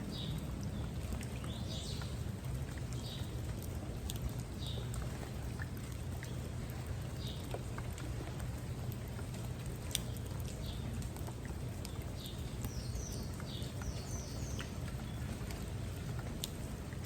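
Steady rain with scattered drop clicks, and short high chirps now and then over it, in a cluster toward the end.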